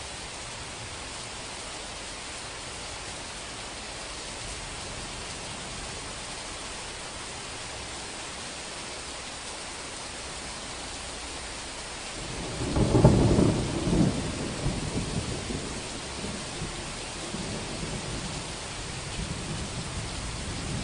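Steady heavy rain, then about twelve seconds in a loud clap of thunder that rolls on as rumbling for a few seconds.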